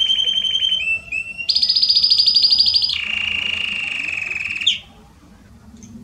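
Belgian canary singing loud, rapid trills, each held for a second or more before jumping to a new pitch, higher then lower. The song ends suddenly with a short upward note just under five seconds in.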